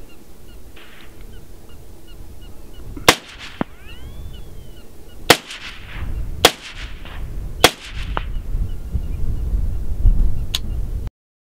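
Rifle shots: four loud cracks about one to two seconds apart, each with a short echo, and a couple of fainter shots. Wind rumbles on the microphone, louder in the second half.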